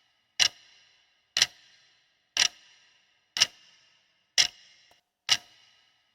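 Clock-like ticking, one sharp tick with a brief metallic ring about once a second, six ticks in all.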